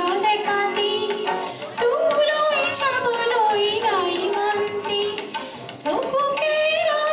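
A live song: a woman singing a gliding melody into a microphone, accompanied by acoustic guitar and tabla.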